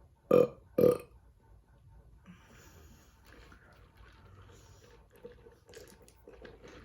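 Two short, loud burps about half a second apart, followed by faint scattered small noises.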